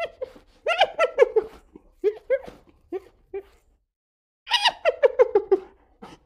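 Hyena giggling: several runs of rapid, short, high-pitched yelping notes, each run dropping in pitch, separated by short silences.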